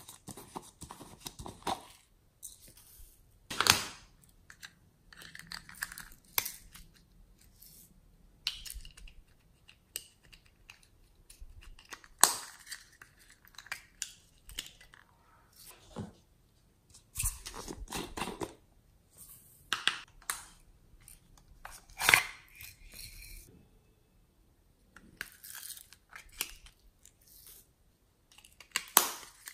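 Small plastic toy containers handled and pried open by hand: irregular crinkling and scraping of plastic with a few sharp clicks and snaps, separated by short quiet gaps.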